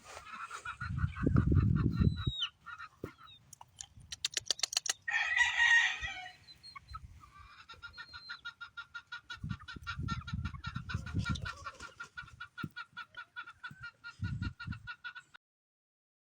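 Gamefowl chickens clucking, with one loud call about five seconds in and a long run of rapid repeated notes afterwards, over low thumps. The sound cuts off abruptly near the end.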